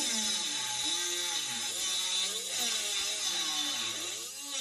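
Rotary tool with a cut-off disc cutting a slot into an aluminium sheet: a high motor whine over a grinding hiss. The pitch dips and recovers as the disc bites into the metal.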